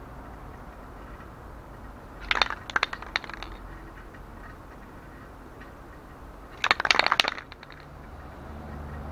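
Aerosol spray-paint can being shaken, its mixing ball rattling in two short bursts about four seconds apart.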